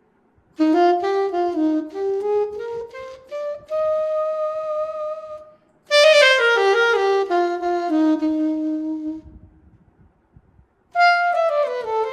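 VHorns sampled alto saxophone played from an EWI USB wind controller: a run of quick rising notes into a held note, then a falling run that ends on a long low note. After a pause of about a second and a half, a new phrase starts near the end.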